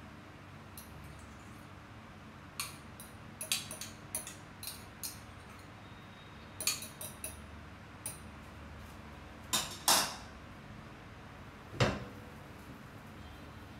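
A metal spoon scraping and clinking against a ceramic bowl and a frying pan as a whipped egg mixture is spooned into the pan: scattered light clicks and taps, loudest about ten seconds in, with a heavier knock near the end. A faint steady low hum runs underneath.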